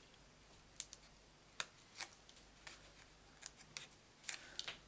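Faint, scattered little clicks and crackles as the backing papers are peeled off foam adhesive dimensionals, with a quick run of clicks near the end.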